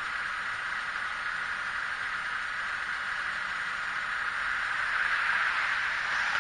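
Steady hiss of street noise, with a car driving past that swells louder about five seconds in.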